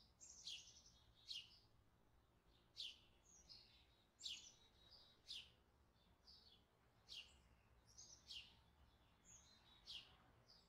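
Faint bird chirping: a run of short, high chirps, each sweeping quickly downward, about one or two a second.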